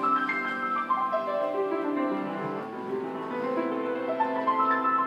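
Piano music: a melody of held notes over sustained lower notes.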